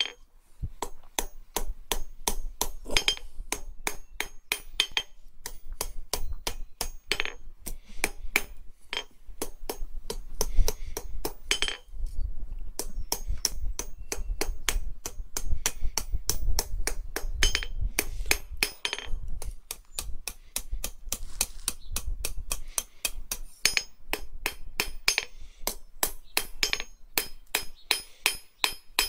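Blacksmith's hand hammer striking a red-hot strip of 1/8 by 1/2 inch flat steel bar on an anvil to round off its edges. The blows are quick and sharp, about three or four a second, with two short pauses partway through.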